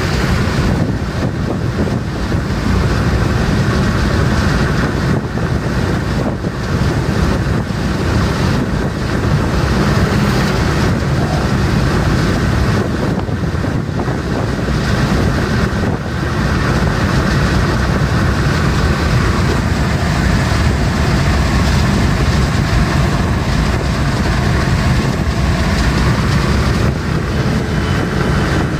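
Steady loud wind and road noise inside a car's cabin at high highway speed.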